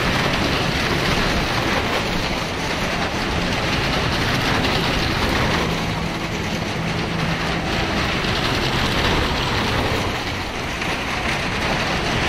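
Maruti cars circling the vertical wooden plank wall of a well-of-death pit: engines running and tyres rumbling over the planks in a continuous loud din.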